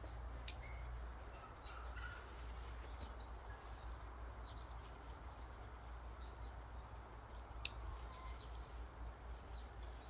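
Faint garden ambience: scattered small bird chirps over a steady low rumble. A sharp click sounds about half a second in, and a louder one near the end.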